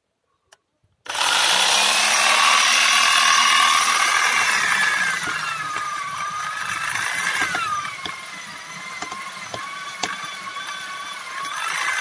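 Small handheld electric chainsaw switching on about a second in and cutting into a tree trunk. Its motor whine drops in pitch as the chain bites into the wood.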